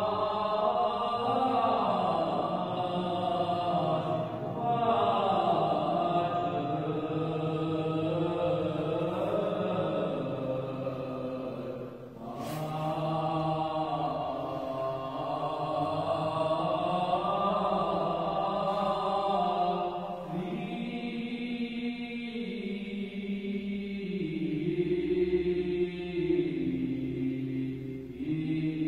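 Armenian Church liturgical chant sung in slow, drawn-out melodic lines by clergy at the altar, breaking off briefly about twelve seconds in.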